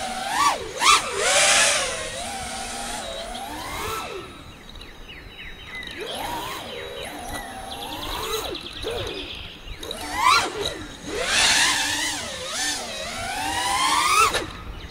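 FPV freestyle quadcopter's brushless motors and propellers whining, the pitch swooping up and down with each throttle punch, with bursts of rushing air twice during hard manoeuvres.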